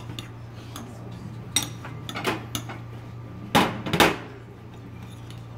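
A metal spoon clinking and scraping against a small glass bowl as diced raw tuna is mixed. The taps are scattered, with the two loudest close together about three and a half seconds in.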